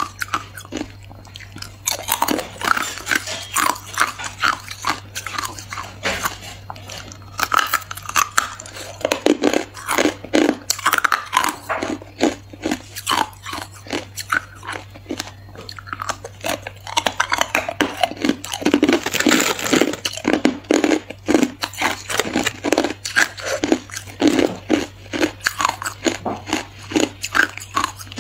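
Chunks of hard white ice being bitten and chewed close to the microphone: a dense run of irregular, crisp crunches that keeps going without a break.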